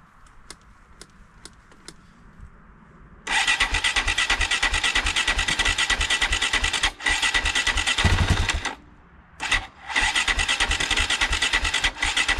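Rebuilt 2001 KTM EXC 520 RFS single-cylinder four-stroke engine firing up about three seconds in, after a few light clicks, then running with a fast, even beat. The sound breaks off and resumes a few times, with one brief rev midway.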